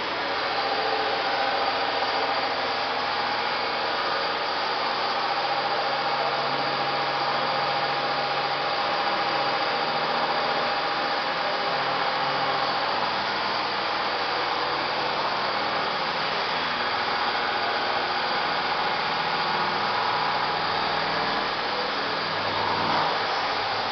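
CNC vertical machining centres running in a workshop: a steady mechanical hiss of spindle, cutting and coolant, with a thin steady whine that fades about halfway through.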